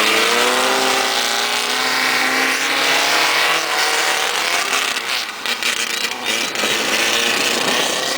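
Engines of modified 1600 cc race cars running hard as the cars race past, the engine pitch sliding down over the first few seconds, then a rougher, noisier stretch with brief drops in level a little past the middle.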